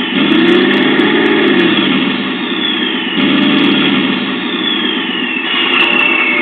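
TBS Mini sound module playing a sampled truck engine through its speaker. The engine revs up and drops back twice, about three seconds apart.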